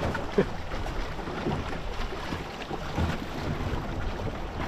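Wind buffeting the microphone and water washing along the hull of a small sailing dinghy under way.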